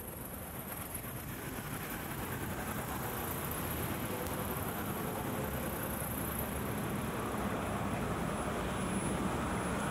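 Steady city vehicle noise, growing louder over the first few seconds and then holding.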